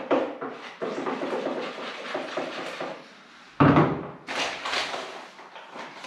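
A spoon stirring and scraping wet plaster adhesive in a plastic bowl, in quick rhythmic strokes; the mix is still too wet. A little past halfway the bowl is set down with a heavy thud on bare floorboards, followed by the crinkle of the adhesive powder bag being handled.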